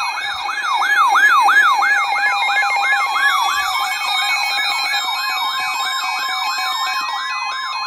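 Electronic alert siren wailing in quick up-and-down sweeps, about three a second and then faster about halfway through, layered over steady electronic alert tones. A rising tone glides upward near the end.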